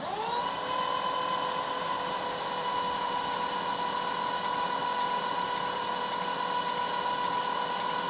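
Starter cranking an International MaxxForce DT (DT466-family) diesel that does not start: a steady high whine that spins up at the start and holds even. This is a crank-no-start, with injection control pressure holding above 800 psi during cranking.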